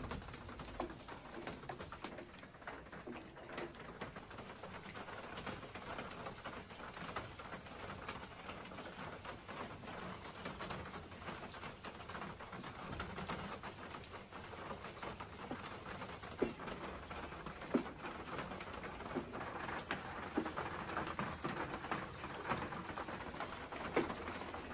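Light rain pattering with a dove cooing, and occasional knocks of a wooden spoon stirring thick rice soup in an aluminium pot.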